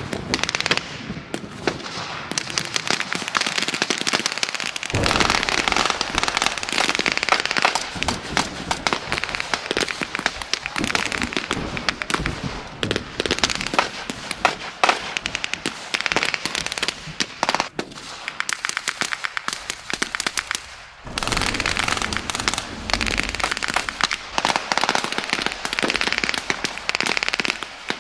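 Sustained battle re-enactment gunfire: many rifles and machine guns firing blanks, sharp cracks in rapid, irregular succession, with a brief lull about three-quarters of the way through.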